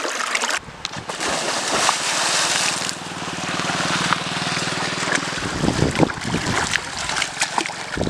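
Canal water splashing and sloshing as swimmers thrash and wrestle in it.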